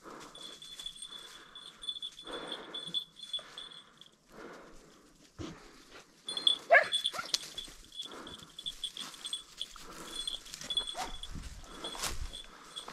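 Hunting dogs working through cover, with a thin ringing tone that pulses on and off over rustling. One short, sharp, gliding cry, the loudest sound, comes about six and a half seconds in.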